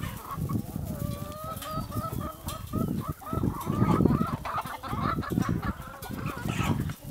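A flock of hens clucking and calling over one another, over a low, uneven rumble.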